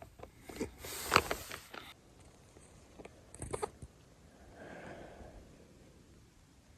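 Close handling noise: clicks and rustles in the first two seconds and again about three and a half seconds in, then a soft swish, with the sound dying down to quiet.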